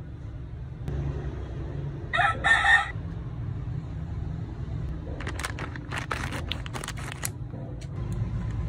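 A rooster crows briefly, in two short parts, about two seconds in. A few seconds later come a run of crinkles and clicks, typical of plastic snack packaging being handled, all over a steady low hum.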